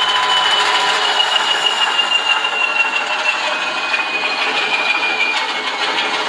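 ESU LokSound decoder playing an Alco 539T six-cylinder diesel switcher engine sound through a small loudspeaker. The engine sound runs loud and steady, with a high whine that slowly falls in pitch and drops a step about five seconds in.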